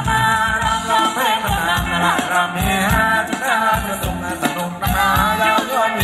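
Live Thai ramwong dance band playing, with a singer over a steady drum beat of about two hits a second.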